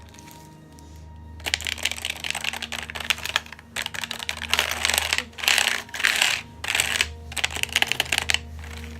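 Rapid typing on a YockTec ZK-P010 semi-mechanical (membrane) gaming keyboard: fast runs of key clicks starting about one and a half seconds in, with short pauses, over background music.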